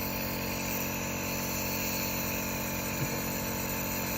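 Compressor nebulizer machine running with a steady motor hum and hiss.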